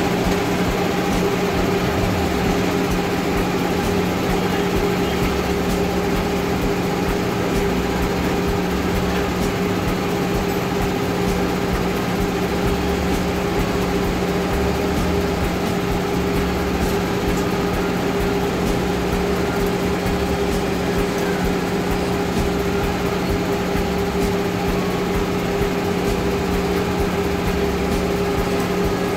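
A steady machine hum at a constant low pitch, unchanging throughout.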